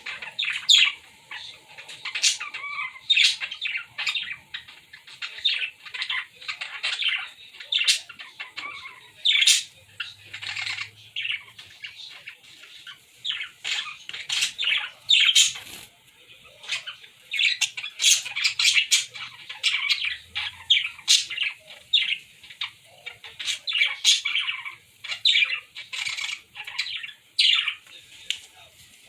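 Pet birds chirping and squawking, a constant run of short, high calls overlapping one another.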